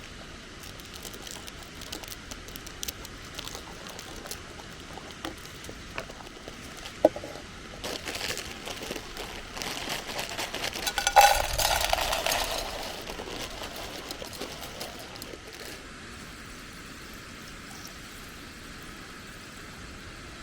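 Camp cooking handling sounds: liquid poured for a few seconds around the middle, with packaging crinkling and small clicks and knocks of utensils, over a steady hiss in the background.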